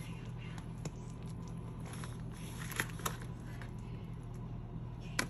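A metal serving spoon scooping shepherd's pie out of a disposable aluminium foil pan, with soft crinkling of the foil and a few sharp clicks as the spoon knocks the pan. The sharpest clicks come about three seconds in and near the end, over a low steady hum.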